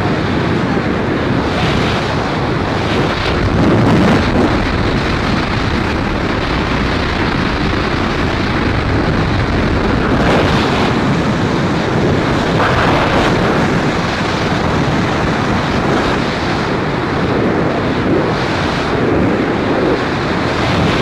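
Freefall wind rushing over the microphone during a tandem skydive: a loud, steady roar of wind buffeting.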